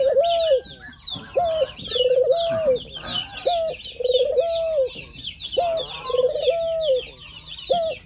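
White ringneck dove cooing, a short note followed by a longer drawn-out coo, repeated about every two seconds. Many quick high chirps from small birds run underneath.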